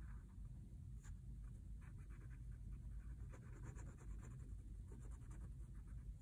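Fine-tip Micron pen scratching faintly across a paper Zentangle tile in many short strokes, over a low steady hum.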